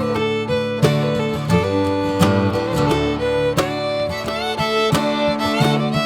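Background music: acoustic guitar and fiddle playing an upbeat country-style tune with plucked strums.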